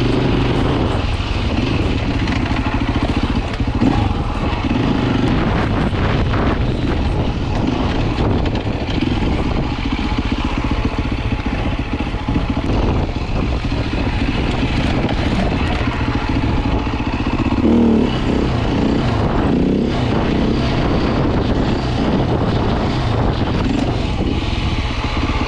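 Beta RR 450 enduro dirt bike's single-cylinder four-stroke engine running while riding, its pitch rising and falling with the throttle.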